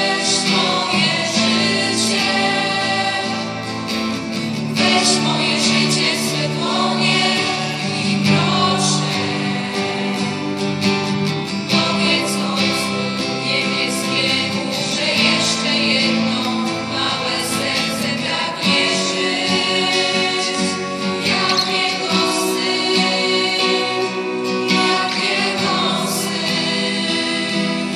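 A church choir singing a slow worship song, accompanied by acoustic guitars.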